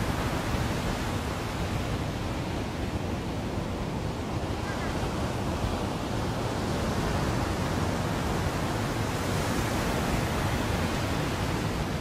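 Sea surf washing onto a beach, with wind rumbling on the microphone; one wash of a wave swells up toward the end.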